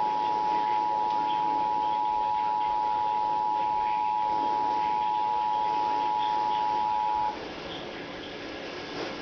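Emergency Alert System attention signal: the two-tone alarm, two steady tones sounded together, held and then cutting off suddenly about seven seconds in, leaving a faint hiss.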